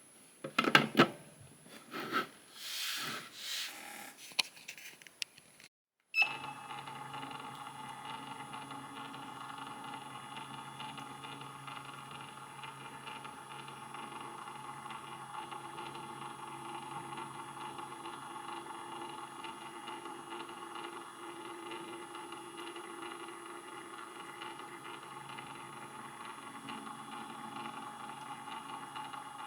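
Plastic parts knocking and scraping as a cover is fitted over a figure's display container, with a rustle about three seconds in. It is followed, after a sudden cut, by a steady faint electrical hum made of several held tones.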